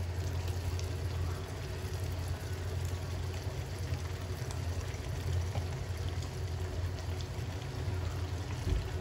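Chilli sauce simmering in a wok, a steady bubbling hiss over a constant low hum, with a few faint soft taps as raw chicken pieces go into the liquid.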